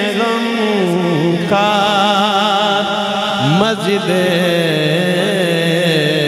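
A man singing a naat into a microphone, drawing out long ornamented notes whose pitch wavers and bends. About three and a half seconds in, a new phrase starts with an upward glide.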